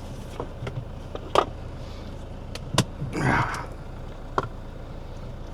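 A few sharp clicks and a short rustle of things being handled inside a vehicle, over a steady low hum.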